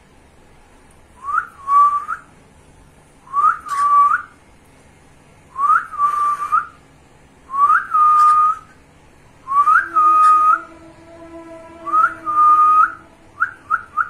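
Cockatiel whistling the same phrase over and over, about every two seconds: a quick rising note, then a held steady note. It ends with a few short chirps.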